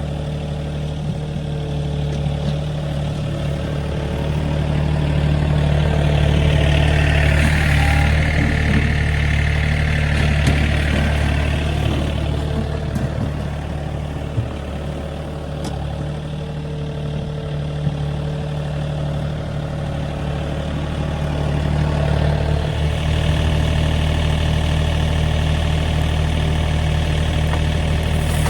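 Heavy engine of a work machine running steadily. It grows louder about a fifth of the way in, with a hissing rush over the top that fades by the middle, and picks up again near the end.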